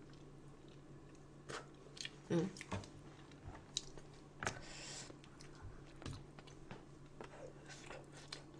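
Soft, intermittent chewing and mouth clicks of someone eating spicy braised chicken on the bone, with scattered small smacks and a brief hissing breath or spit about halfway through.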